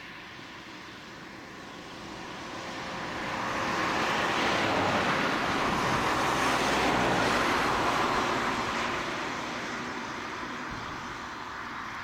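Jet aircraft landing, its engine noise building over a few seconds, loudest around touchdown in the middle, then slowly easing as it rolls out along the runway.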